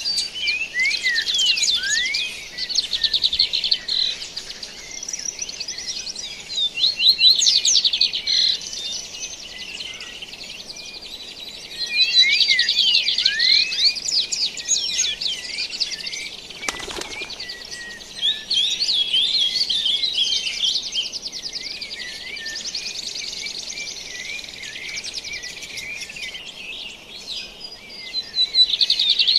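Dawn chorus of several songbirds singing together: rapid overlapping chirps, trills and whistled glides that swell and ease off in waves.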